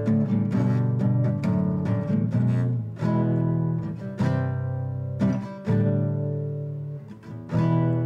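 Nylon-string classical guitar played slowly: plucked chords and single notes struck about once a second or so, each left to ring and fade, forming a simple melody.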